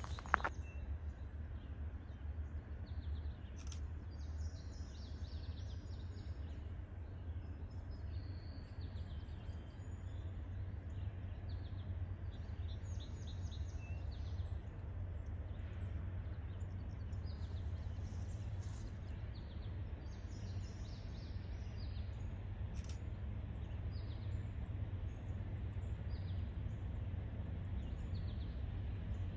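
Small birds chirping and twittering over a steady low rumble from a distant diesel freight train approaching. The rumble grows slightly louder.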